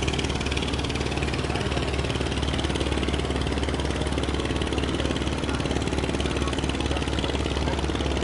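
Ship's engine running steadily, a constant low drone that does not change.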